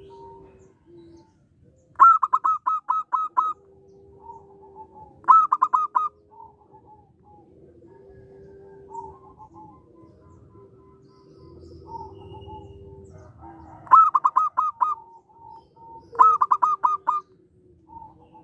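Zebra dove (perkutut) singing: four bursts of rapid staccato cooing notes, each about a second long, two in the first six seconds and two more from about fourteen seconds in. Fainter, drawn-out lower notes sound between the bursts.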